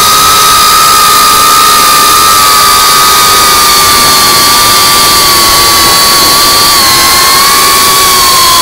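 FPV quadcopter's brushless motors and propellers whining steadily, heard from the onboard camera, over a loud hiss of prop wash and wind. The whine's pitch sags slightly lower toward the end.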